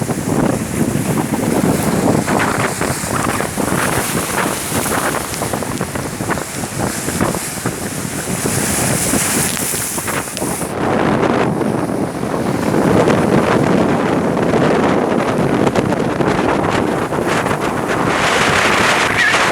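Strong storm wind gusting hard against the microphone, the gale brought by the approach of tropical storm Otto. About eleven seconds in, the rushing shifts lower and heavier.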